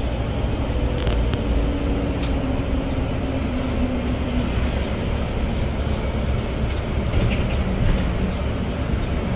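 Cabin noise of a moving public bus: a steady low rumble of engine and road noise, with a few light knocks and a faint steady whine for a few seconds after about a second and a half.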